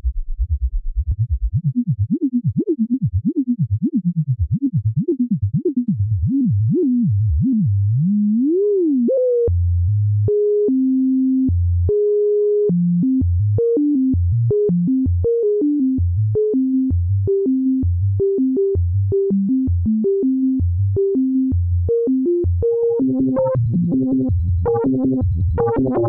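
K-ACCUMULATOR synthesizer module playing on its own, its timbre being modulated. First come repeated swooping pitch sweeps, then a rising glide, then a stepped sequence of short notes jumping between a few pitches, which turns brighter and buzzier near the end.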